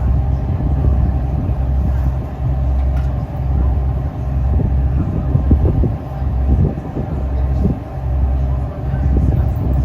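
Diesel engine of a Windermere lake cruise boat running, heard on board as a steady low rumble that swells and eases slightly every second or two.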